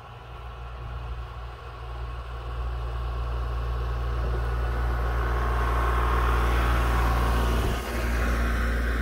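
An engine running steadily with a low hum, getting louder over the first several seconds.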